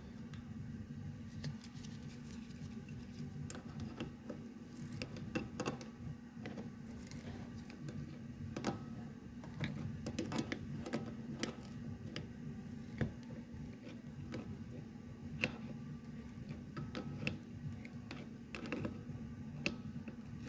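Irregular clicks and light metal taps as a braided AN hose end fitting is handled, threaded together and tightened with hand tools, over a steady low hum.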